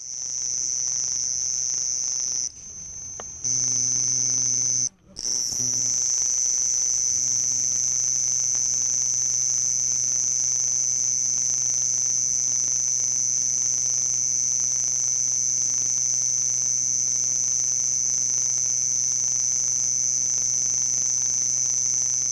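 Male house cricket (Acheta domesticus) stridulating, rubbing the file on one raised forewing against the other to make a continuous high-pitched trill. The song breaks off briefly twice in the first five seconds, then runs on unbroken.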